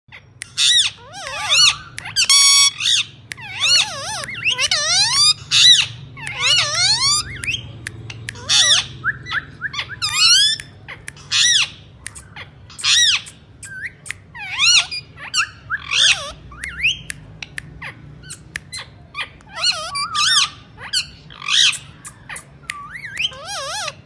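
Indian ringneck parakeet calling and chattering in a string of short, high-pitched phrases whose pitch slides up and down, with brief pauses between them.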